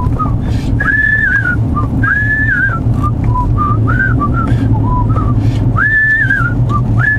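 A man whistling a tune, short phrases of quick notes broken by a few longer held high ones, over the steady low drone of a car's cabin at road speed.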